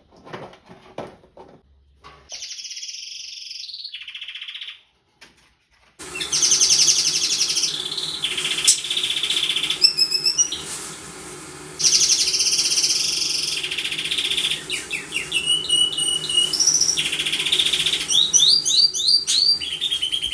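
Canaries singing: long rolling trills of rapidly repeated notes alternating with high chirps. A short pause comes about five seconds in, after which the song resumes louder over a low steady hum.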